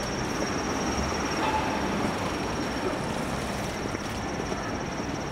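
City street ambience: a steady wash of traffic and crowd noise, with a thin high whine over it.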